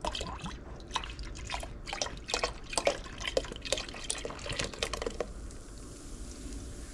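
Beer being poured into a pot of salted water, with irregular glugging and splashing for about five seconds, then a steady hiss.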